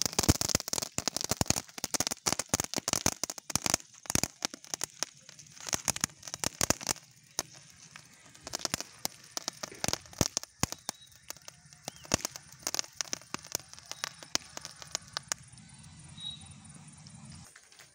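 Handheld gun-shaped firework fountain spraying sparks, with a hiss and dense crackling. The crackles thin out after about seven seconds and die away near the end as it burns out.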